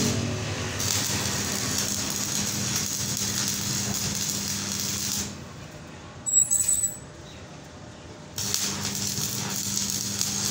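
An electric welding arc crackles and hisses steadily over a constant hum as weld is laid on the end of an electric motor shaft to build it up for re-sizing. The arc stops a little after five seconds, and there is a brief sharp clatter during the pause. The arc strikes again about three seconds later.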